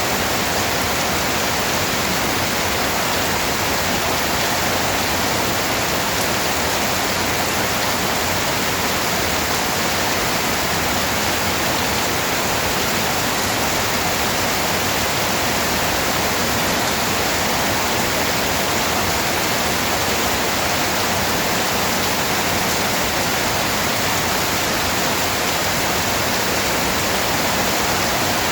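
Steady heavy rain: a dense, even hiss that does not change.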